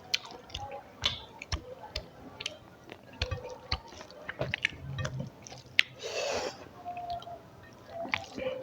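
Close-up eating sounds: a person chewing rice and rohu fish curry with bori, with irregular wet smacks and clicks of the mouth. A longer noisy sound comes about six seconds in.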